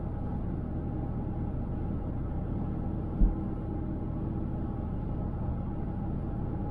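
Steady low rumble of a car travelling at highway speed, mostly road and tyre noise. A single low thump sounds about three seconds in.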